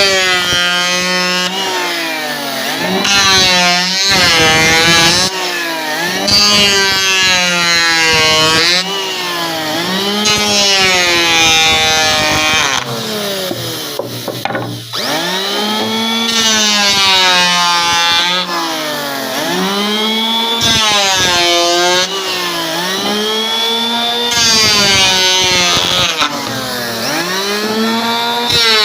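Motor-driven saw cutting wood, its pitch dropping as the blade bites in and rising again as it frees up, over and over, roughly every two to three seconds.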